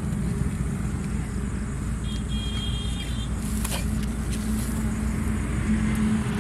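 Steady low engine rumble with a constant hum, like a motor vehicle running, and a brief faint high-pitched horn toot about two seconds in.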